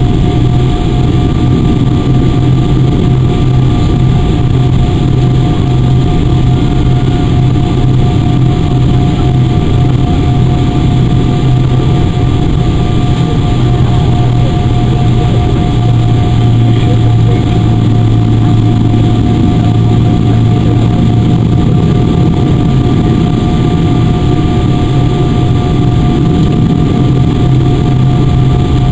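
Cabin noise inside a Boeing 777-300 airliner taxiing: the jet engines' steady low rumble with a constant whine on top, heard from a seat over the wing.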